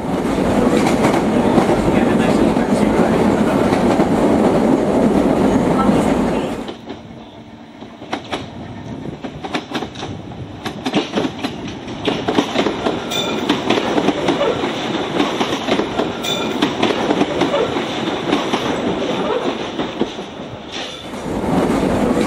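Electric train running on jointed track: a loud steady rumble for the first several seconds, then quieter with rapid clicking of wheels over rail joints and two brief high squeaks, loud again near the end.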